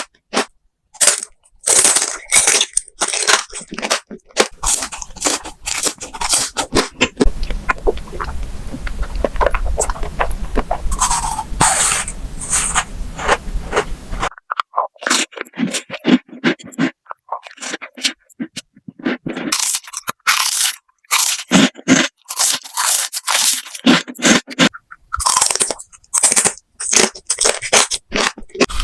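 Crunchy food being bitten and chewed close to the microphone: a dense run of crisp, irregular crunches. A low hum sits under the crunching for several seconds in the middle and cuts off suddenly.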